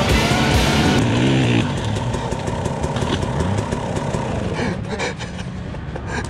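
Background music that stops about a second and a half in, followed by a dirt bike engine running steadily.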